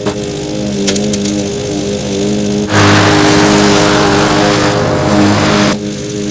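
Murray 20-inch side-discharge push mower's engine running steadily as it cuts grass. About three seconds in it comes close by and grows much louder and noisier for about three seconds, then drops back as it moves away.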